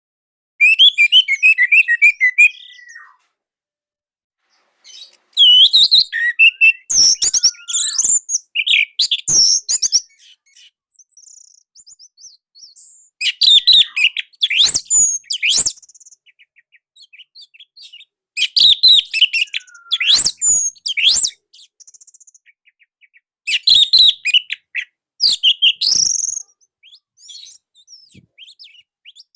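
Orange-headed thrush (anis merah) singing: five loud phrases of fast, varied notes with quick slides, a few seconds apart, with faint scattered notes between.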